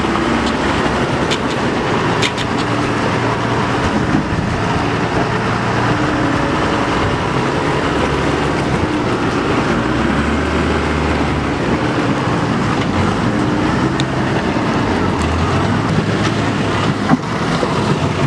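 Heavy diesel engines running steadily under load: a wheel loader towing a loaded truck whose axle is broken, with a few light knocks near the start and near the end.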